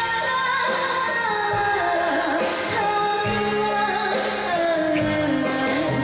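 A woman singing live into a handheld microphone, holding long wavering notes, over a live band accompaniment with a steady drum beat.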